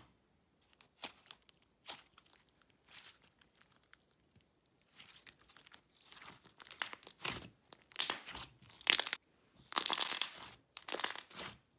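Thick, glossy slime being stretched and pressed by hand, giving irregular sticky crackles and pops. They are sparse at first and come louder and more often in the second half.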